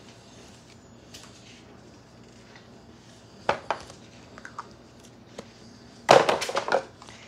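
Small hard objects handled close to the microphone: a single sharp click about three and a half seconds in, a few faint ticks, then a quick run of loud clicks and clatter near the end.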